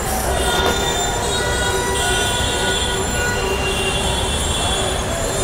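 Elevated metro train running on the viaduct, its wheels squealing as several steady high-pitched tones over a rumbling base, one tone shifting about two seconds in.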